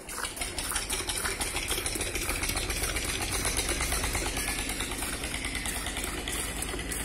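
Cow being milked by hand: milk squirting in quick rhythmic streams into a steel bucket of frothy milk, over a steady low engine hum.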